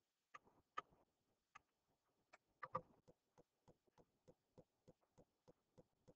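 Near silence broken by faint clicks: a few irregular taps of a stylus writing on a touchscreen in the first three seconds, then a steady soft ticking about three times a second.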